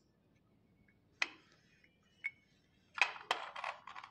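Two sharp clicks of slate pencils being handled, then from about three seconds in a quick run of crisp crunches as a slate pencil is bitten and chewed.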